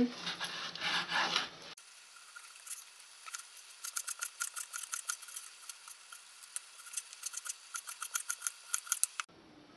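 Kitchen knife slicing raw pork on a bamboo cutting board: a run of short blade strokes against the board, about five a second, most of them in the second half.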